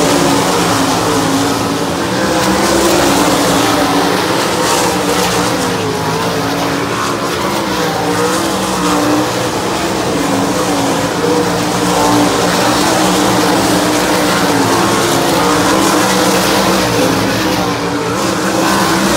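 A pack of 410 winged sprint cars' methanol-burning V8 engines running together around a dirt oval. It is a loud, continuous blend of engine notes that waver up and down in pitch as the cars pass and get on and off the throttle.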